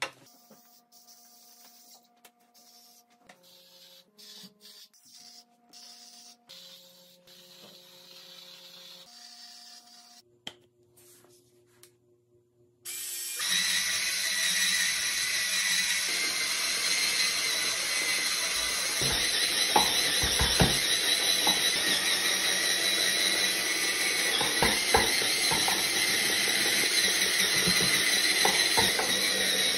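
After a quiet start with faint soft tones and small clicks, an electric spin scrub brush switches on about 13 seconds in. It then whirs steadily with a high whine as its spinning pad scrubs wet shower tile, with occasional knocks as the head meets the tile.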